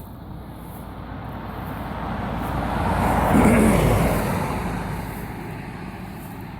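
A car passing by on the road. It grows louder to a peak about three and a half seconds in, then fades away, its pitch dropping as it goes past.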